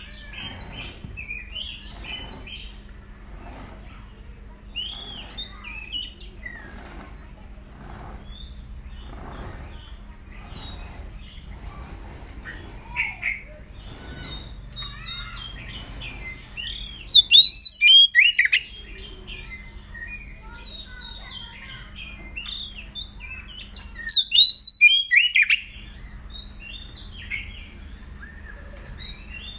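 Oriental magpie-robin singing in quick, sharp whistled chirps and trills, rising to two loud, rapid bursts of song about halfway through and again near the end. It is the agitated, aggressive song of a bird fired up in breeding condition.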